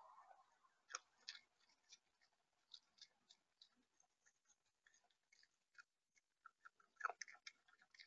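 Faint, irregular tapping and clicking from a bird pecking at seed in a feeder tray close to the microphone, with a louder flurry of pecks about seven seconds in.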